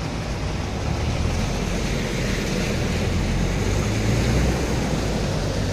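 A car driving through floodwater, heard from inside the cabin: a steady rush of water churned up by the tyres over the low, even hum of the engine.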